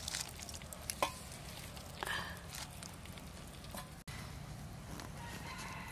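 Light taps as roasted egg halves are set onto a steel plate, over a quiet outdoor background, with a short call from an animal about two seconds in.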